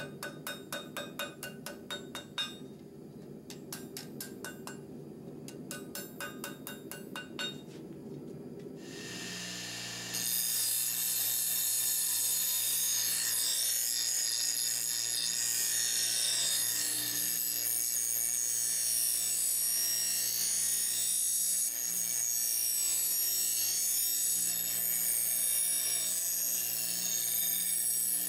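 Hand hammer striking red-hot rebar steel on an anvil in quick runs of blows, straightening the blade. About ten seconds in, this gives way to a bench grinder: a steady motor hum under the hiss of the wheel grinding the steel blade.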